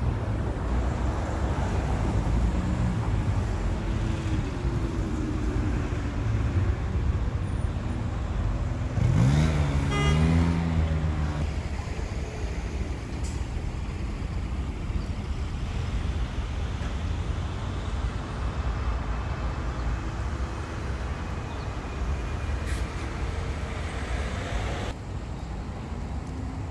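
Road traffic: a steady low rumble of passing vehicles, with one vehicle engine accelerating past, its pitch rising, at about nine to eleven seconds in, the loudest moment.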